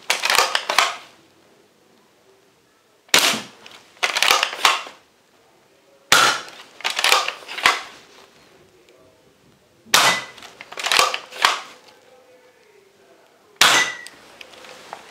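NERF Commander Elite 2.0 pump-action foam-dart blaster being pumped and fired, a cluster of sharp plastic clacks and a shot about every three to four seconds.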